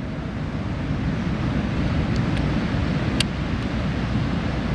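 Steady low rumble of wind on an outdoor microphone, with a faint click about three seconds in.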